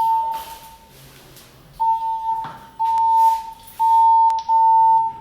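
Fire alarm voice-evacuation system sounding its alert tone through the building speakers: a steady high beep pulsing about once a second, with a short break near the start. A single knock about halfway through.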